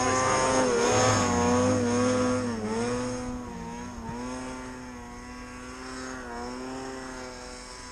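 A snowmobile engine running hard at high revs as it climbs a deep-powder slope, its pitch dipping and recovering with the throttle. The sound fades as the sled pulls away up the hill.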